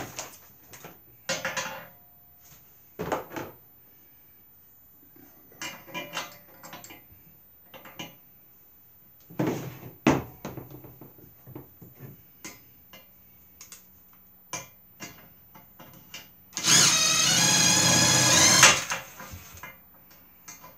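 Scattered clinks and knocks of a wrench and bolts on a steel frame, then a cordless drill runs steadily for about two seconds near the end, driving a bolt tight.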